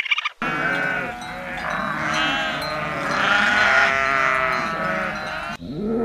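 A flock of sheep bleating, many calls overlapping one another, cut off abruptly near the end.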